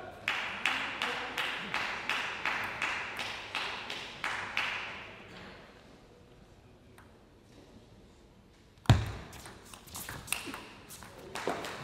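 A celluloid table tennis ball bounced steadily on the table about three times a second, each bounce a sharp ringing click, while the server prepares. After a quiet pause comes a loud sharp hit about nine seconds in, then a few quick clicks of ball on bats and table as the rally starts.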